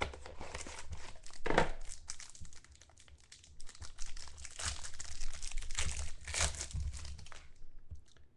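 Clear plastic wrapper on a pack of trading cards crinkling and tearing as it is pulled open by hand, in irregular bursts, with a louder burst about a second and a half in and denser crinkling through the second half before it thins out near the end.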